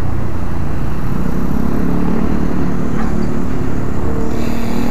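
Motor vehicle engines running close by in street traffic, a steady engine hum over constant low wind rumble on the microphone of a moving bicycle.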